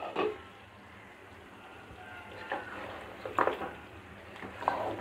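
Wooden spatula stirring and scraping thick beef curry in a pot, a few soft scrapes in the second half, over a faint sizzle.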